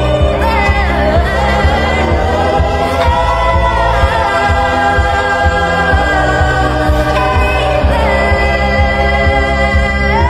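Sped-up pop song mashup: a raised-pitch voice singing long held notes that slide between pitches, over a steady low bass and chords.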